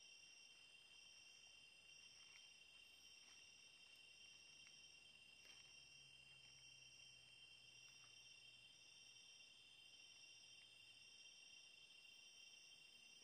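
Faint, steady, high-pitched chorus of night insects, one voice pulsing on and off over a continuous trill, with a few soft clicks.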